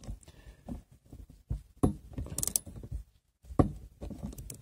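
Irregular metallic clicks and clinks of wrenches working the nut on a parking-brake cable adjuster as it is tightened, with a brief pause just after the middle.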